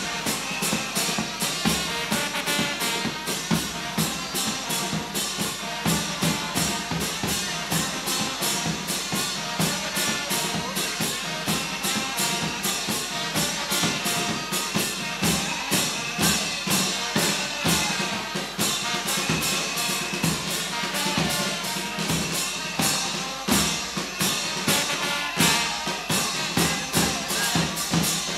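Live church brass band playing horns over marching bass drums and snare drums, with a steady, driving drum beat.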